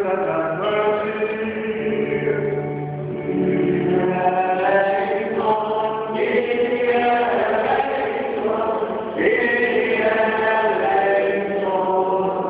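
Greek Orthodox liturgical chant: voices singing a hymn together in long held notes, several pitches sounding at once.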